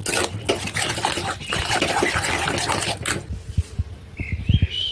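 Kitchen work sounds: dense clattering and scraping with liquid for about three seconds, then a few soft low thumps and a short high squeak near the end.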